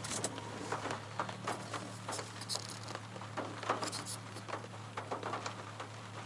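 Rain drops tapping irregularly on a car's roof and windshield, several taps a second, over the car's steady low hum.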